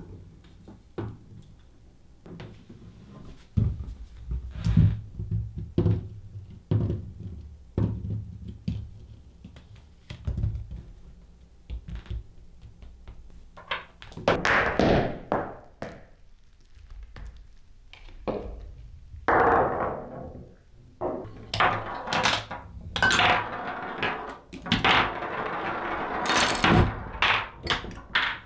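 A Rube Goldberg chain-reaction machine running on a wooden tabletop: an irregular series of thunks, knocks and clicks as objects tip, drop and hit one another. Longer rattling, rolling stretches come about halfway through and again through most of the second half.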